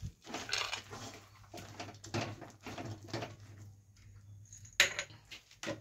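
Peanuts tipped into a pan of cooked jaggery and stirred in with a spoon: a run of irregular scraping, rustling strokes, then two sharp knocks near the end.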